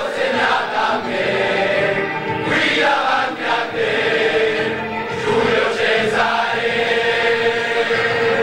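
Background music of a choir singing, with long held notes.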